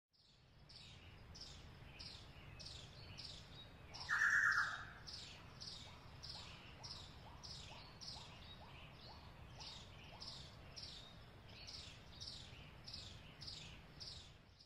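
A bird calling in a rapid, even series of high, falling chirps, about three a second, over a low outdoor background rumble. A short, louder sound breaks in about four seconds in.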